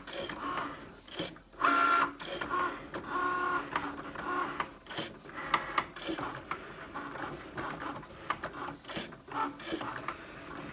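Cricut Maker cutting machine at work: its motors whir in short stop-start moves as the tool carriage shuttles back and forth, with knocking clicks among them. The knocking is an unwanted fault noise, present from the machine's first use.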